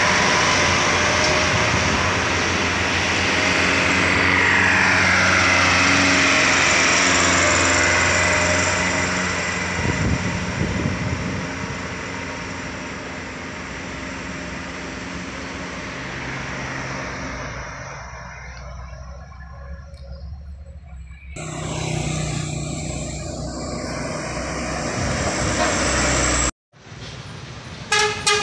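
Diesel engines of loaded sugarcane trucks working up a steep climb at full throttle, loud as they pass close and then fading into the distance. After a sudden break another truck engine runs close by, and a short horn toot sounds near the end.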